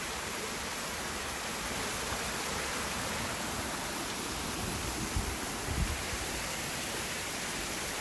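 Small waterfall and rain-swollen creek pouring over rock ledges: a steady rush of falling water.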